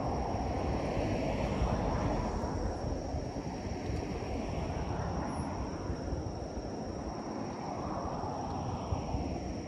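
Road traffic on the bridge: the steady rush of vehicles, with two cars passing close, their tyre noise swelling and fading about a second in and again near the end. A thin, steady high whine runs under it.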